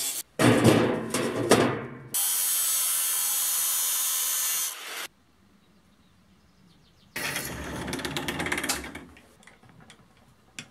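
Angle grinder with a thin cut-off disc cutting steel plate: first a rough, uneven burst, then a steady high hiss for a few seconds. After a short quiet, a socket ratchet clicks rapidly as a bolt is turned, thinning to scattered ticks.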